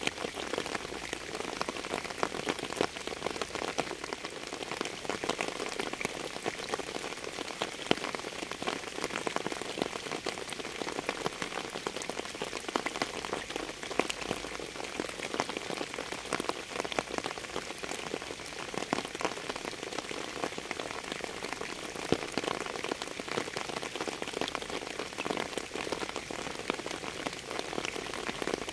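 Steady rain falling, with many separate drop hits heard as fine irregular clicks over an even hiss.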